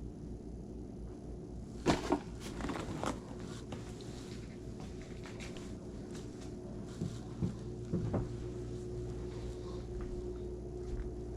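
Household items being handled: two sharp knocks about two seconds in with some clattering after, then a few dull thumps around seven to eight seconds, over a steady low hum.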